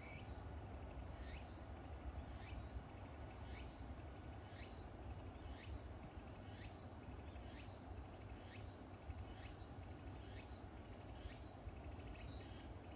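Faint animal call, a short chirp rising in pitch, repeated about once a second over a low steady rumble.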